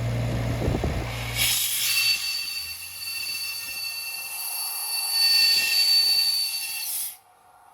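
Atlas Copco XAS68 portable air compressor: its four-cylinder Kubota diesel running with a low rumble, which drops away about a second and a half in as a loud whistling hiss of compressed air venting takes over. The hiss lasts about five and a half seconds and cuts off suddenly.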